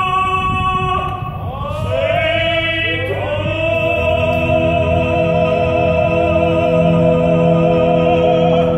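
Male voices singing opera together in harmony. They glide between notes at first, then hold a long sustained final chord through the second half.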